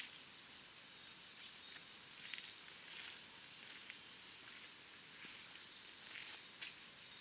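Faint outdoor background hiss with scattered short, high bird chirps.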